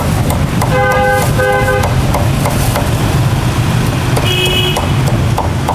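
A vehicle horn beeps twice in quick succession about a second in, and another, higher-pitched horn beeps briefly near the end, over a steady low rumble of traffic. Sharp cleaver chops on a wooden chopping block sound through it.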